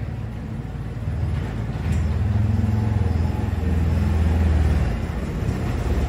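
CFMOTO UForce XL 1000 side-by-side's V-twin engine running as the machine drives slowly in. Its steady low hum grows louder about two seconds in and eases off near the end.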